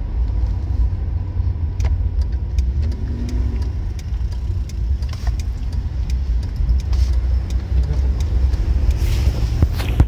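Suzuki Grand Vitara cabin noise while driving and slowing down: a steady low road-and-engine rumble, with scattered light clicks and rattles.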